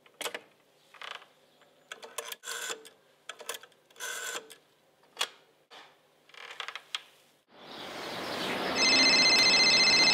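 A rotary telephone dial is turned and whirs back with clicks, several times over, for about seven seconds. Then steady outdoor background noise comes up, and from about nine seconds a telephone rings loudly with a rapid trilling tone.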